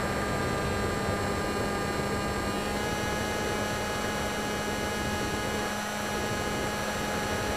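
Hobbyking Breeze model plane's electric motor and propeller running steadily, heard from the camera on board: a constant hum with several high tones over a steady hiss. The tones shift slightly in pitch about three seconds in.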